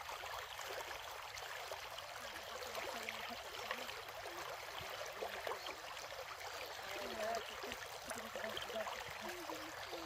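A small stream running steadily, its water trickling and gurgling.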